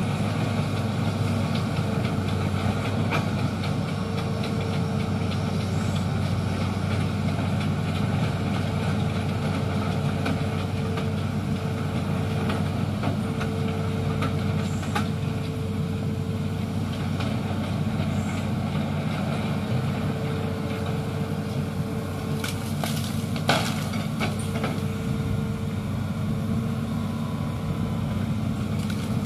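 Hitachi Zaxis 210F amphibious excavator's diesel engine running steadily as the boom and bucket work, with a hydraulic whine that comes and goes. A few sharp knocks come about three quarters of the way through.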